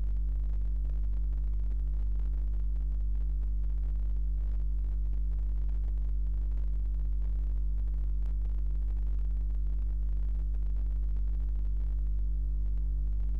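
Steady low electrical hum, with a ladder of fainter overtones above it, running unchanged throughout. It is mains hum on the old off-air tape recording of the clock caption.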